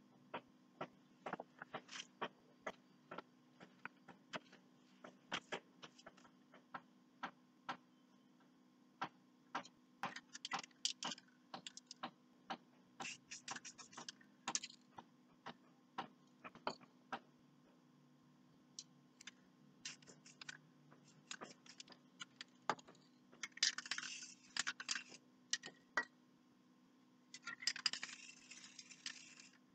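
Irregular faint taps and clicks from painting tools and paper being handled on a worktable, with a few short bursts of rustling hiss, the last as a sheet of paper is moved over the painting. A low steady hum runs underneath.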